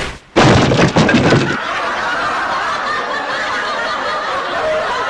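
Cartoon sound effect of a heavy body crashing down onto rock: a sudden loud crash about a third of a second in, after a brief gap, lasting about a second. A quieter, steadier sound follows.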